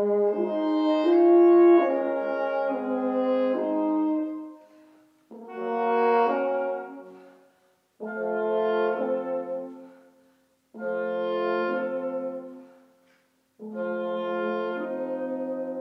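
A piece of music played by a brass ensemble with the sound of French horns, in held chords: for about four seconds the chords change every second or so, then come four separate chords of about two seconds each with short gaps of silence between them.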